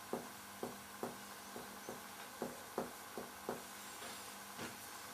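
Finger-on-finger (mediate) percussion of a person's chest: about a dozen faint, dull taps at two to three a second, some in quick pairs. It is worked toward the cardiac apex to find where the note turns dull at the left border of relative cardiac dullness.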